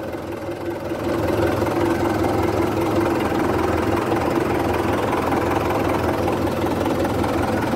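John Deere 5510 tractor's four-cylinder diesel engine idling steadily just after starting, heard from the operator's seat. It gets slightly louder about a second in.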